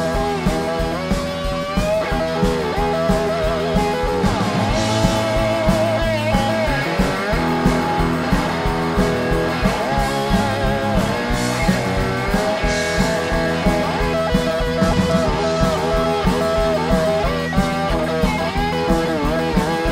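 Live blues-rock band playing an instrumental passage: electric guitar lead lines with bends and vibrato over bass guitar and a steady drum beat.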